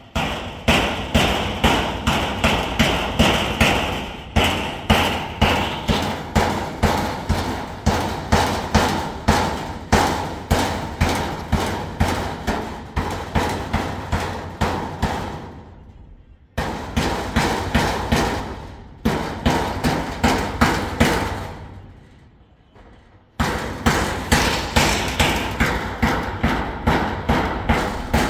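Hammer blows struck in quick succession, about three a second, in long runs broken by short pauses.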